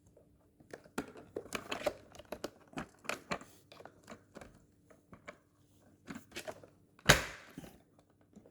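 Plastic replacement rear wheel of a Shark DuoClean vacuum being worked onto its metal arm: a run of small clicks, knocks and plastic rattles as it is wiggled into place, then a louder clunk about seven seconds in as it is pushed home.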